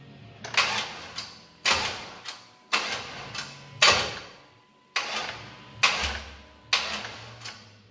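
Seven sharp knocks, about one a second, each fading quickly and followed by a smaller knock.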